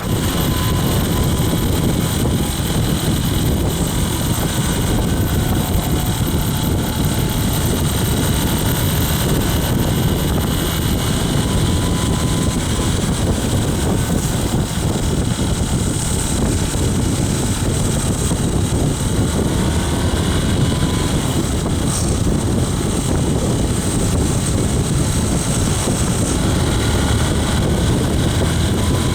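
Hay baler and the tractor drawing it running steadily, a continuous loud mechanical noise.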